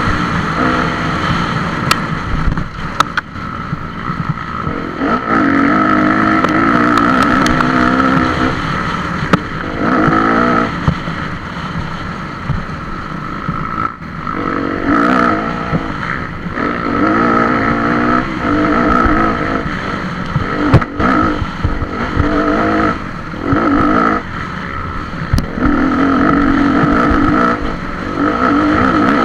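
Kawasaki off-road motorcycle engine heard from a helmet camera, revving hard in spells of one to three seconds and dropping back off the throttle between them, with wind noise and scattered knocks from the bike over rough ground.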